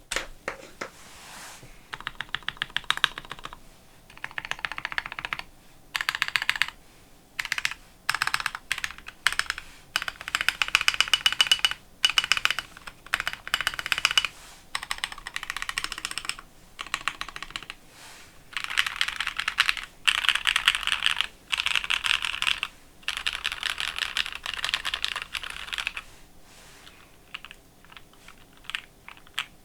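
Typing on a BBox60 mechanical keyboard with stock JWick Red linear switches on a plateless DZ60 PCB and Akko ASA-profile keycaps: fast runs of keystroke clacks in bursts separated by short pauses, lighter and sparser near the end.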